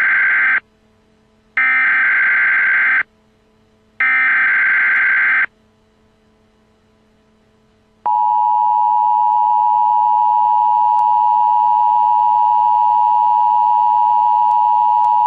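Emergency Alert System broadcast tones: three harsh digital data bursts of about a second and a half each (the SAME header), spaced about a second apart. After a pause of a couple of seconds, the steady EAS two-tone attention signal starts about eight seconds in.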